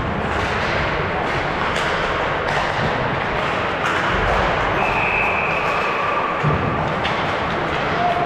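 Ice hockey play in a rink: several sharp thuds and clacks of puck, sticks and boards over steady rink noise, with a short high tone about five seconds in.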